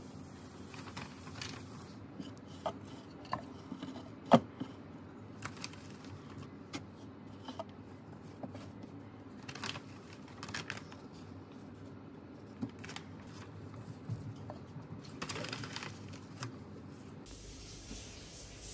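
Dry rustling of dried moss being pulled apart and pressed into place by hand, with scattered light clicks and taps of small wooden decor pieces, and one sharper knock about four seconds in.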